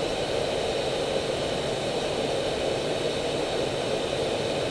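Steady flight-deck noise inside an Airbus A319 cockpit in descent: an even rush with faint high steady tones and no sudden sounds.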